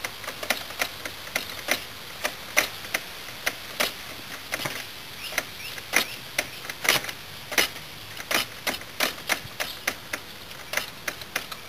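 Irregular sharp mechanical clicks, two or three a second, from a Yamaha Badger 80 ATV's drivetrain as its wheel is turned by hand to bring the engine round to top dead center.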